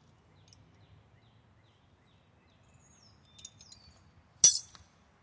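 Metal wrenches clinking against each other as they are sorted through in search of a 15 mm wrench: a few light clinks about three and a half seconds in, then one loud clank about a second later.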